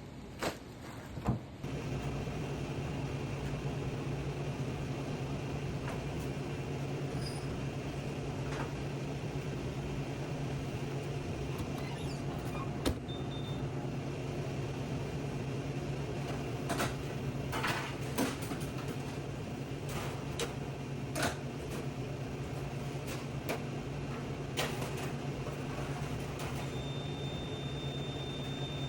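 Steady hum of fast-food kitchen equipment, such as exhaust hoods and coolers, with scattered clicks and knocks of handling. A high steady beep sounds for about two seconds near the end.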